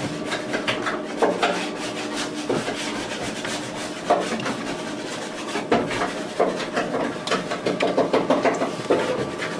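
Electric dough kneader working bread dough round its stainless steel bowl: a steady machine hum under irregular scraping, rubbing and slapping of the dough against the steel.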